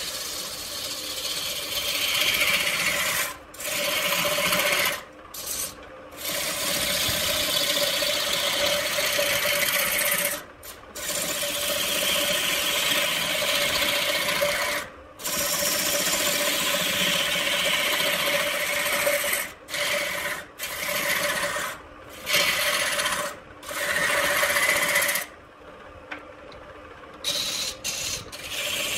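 Hand-held turning tool cutting into wood blanks spinning on a large electric wood lathe: a steady scraping hiss in long passes, broken by short pauses as the tool comes off the wood, over a steady hum.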